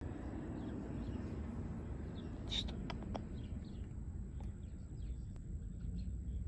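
Outdoor ambience through an open door: a steady low rumble with scattered faint bird chirps, and one brighter short, high chirp followed by a couple of sharp clicks about two and a half to three seconds in.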